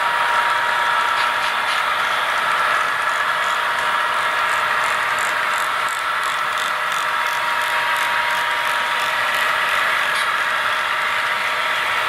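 HO scale model coal train rolling past, its hopper cars running with a steady hum and rattle, and light wheel clicks about three times a second through the middle.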